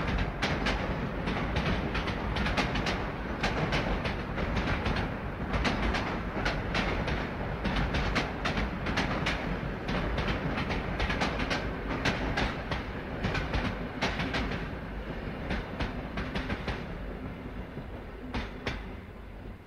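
Steam train rolling past, its wheels clattering over the rail joints in an irregular run of sharp clicks; the sound fades away over the last few seconds.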